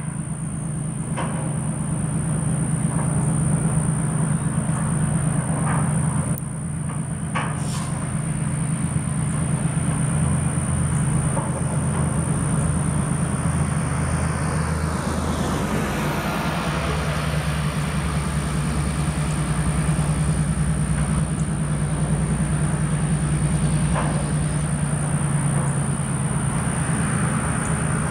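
Diesel locomotive engine running with a steady low drone as it pulls a train of covered hopper cars slowly past, with occasional sharp wheel clicks on the rails.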